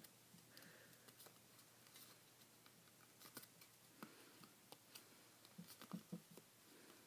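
Faint crinkling and rustling of paper being folded and creased by hand, in scattered small crackles, with a cluster near the end.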